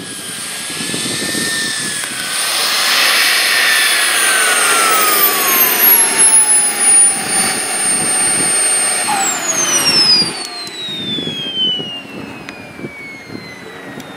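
Radio-controlled model jet's engine whining, its pitch sliding steadily downward as it winds down, loudest in the middle and fading after about ten seconds.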